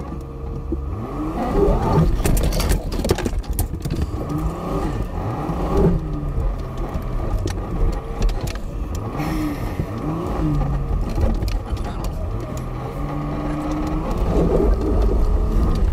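Van engine heard from inside the cab, its pitch rising and falling again and again as it crawls over a rough, rocky dirt track, over a steady low rumble. Scattered knocks and rattles from the body and suspension, thickest a few seconds in.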